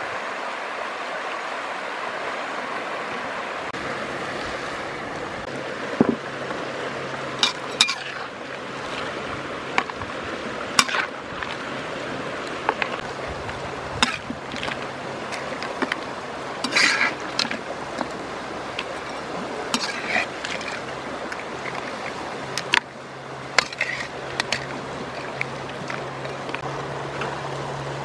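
Steady rushing of a swollen, muddy river, with scattered sharp clicks and clinks from about six seconds in.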